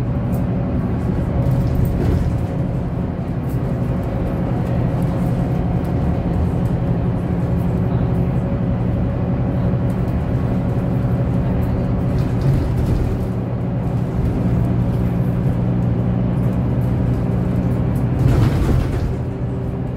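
Steady drone of a city bus's engine and drivetrain heard from inside the passenger cabin while the bus is under way, with steady low tones. A brief rush of noise comes near the end.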